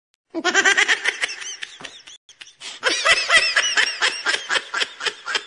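Laughter in quick, rapid pulses, in two bouts with a short break about two seconds in.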